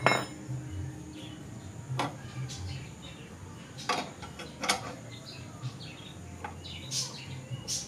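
Scissor jack being turned by its hand crank: a handful of separate metallic clicks and clinks a second or so apart, with faint creaks between.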